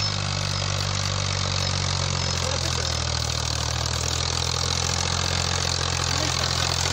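Fiat 480 tractor's three-cylinder diesel engine running steadily under load while pulling a heavily loaded trolley uphill.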